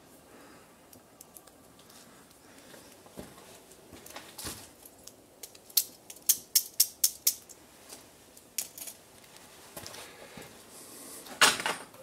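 Wood crackling in a small Bushbox LF folding box stove: scattered sharp pops, a quick run of them around the middle and one loud snap near the end.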